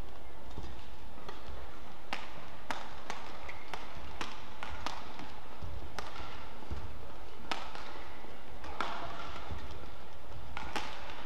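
Badminton rally: rackets striking the shuttlecock in a run of sharp cracks, quick in the middle of the rally, some only half a second apart, and spaced out toward the end.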